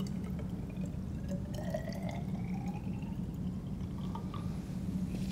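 Liquid poured from a glass beaker into a glass graduated cylinder: a faint trickle whose pitch rises as the cylinder fills, over a steady low hum. A couple of light clicks come near the end.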